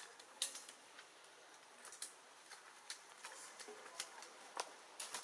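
Irregular sharp clicks and crackles, about one or two a second, over a faint steady background.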